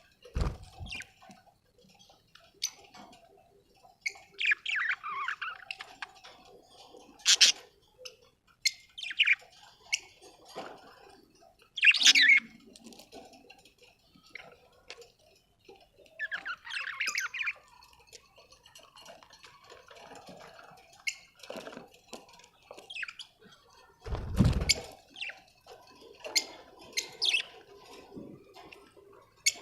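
Budgerigars chirping and squawking in short, irregular calls, some sweeping down in pitch, with two low thuds, one just after the start and one about 24 seconds in.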